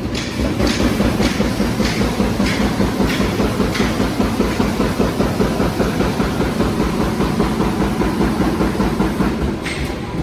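High-speed double-line roll bag making machine running: a steady, fast mechanical clatter. Hissing bursts come about every two-thirds of a second for the first few seconds, fade, and return near the end.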